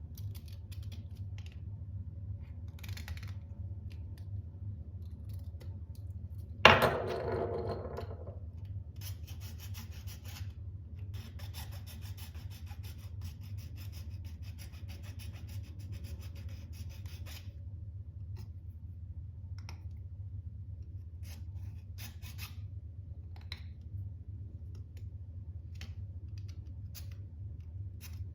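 Small 3D-printed plastic parts being handled and worked by hand: a sharp knock with a short ring about seven seconds in, then a long stretch of scratching and rubbing, with scattered clicks, over a steady low hum.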